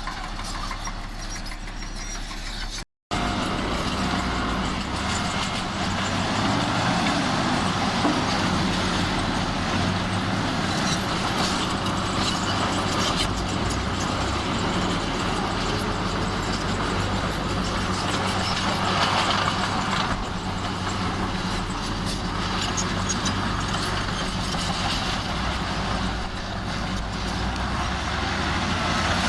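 Heavy diesel earthmoving machinery running steadily with a low engine hum, louder after a brief gap about three seconds in.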